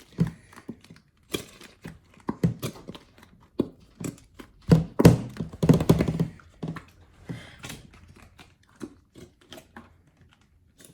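Slime mixed with crunchy foam-bead activator being mixed and squished, giving irregular little clicks and pops with a louder squelching stretch about five seconds in.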